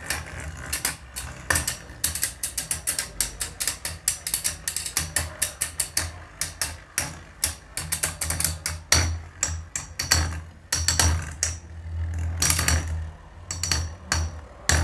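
Two metal Beyblade spinning tops, Phantom Orion on its bearing drive and Scythe Kronos, spinning side by side in a plastic stadium during a stamina battle and knocking against each other over and over: a rapid run of clicks and rattles over a low steady hum. In the second half the clicks come in clusters with a brief higher ring.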